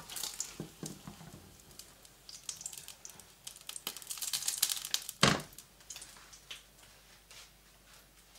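A silicone spatula and a slotted turner sliding a folded omelette onto a porcelain plate: soft scraping and crackling with scattered clicks, and one sharp knock about five seconds in.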